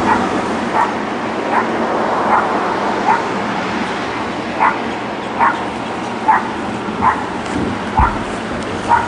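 Dogs yapping over and over, a sharp bark about every second, with a short break about four seconds in.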